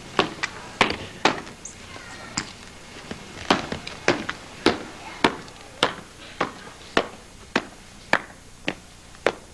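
Boot heels of a marching soldier striking cobblestones in a steady beat, a little under two steps a second, from about a third of the way in. Before that come a few irregular knocks.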